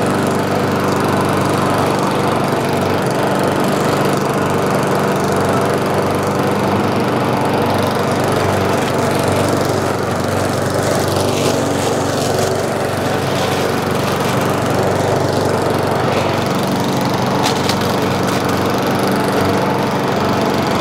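Murray walk-behind push mower with a Briggs & Stratton petrol engine, running steadily while its blade cuts through weeds. A few sharp ticks come near the end.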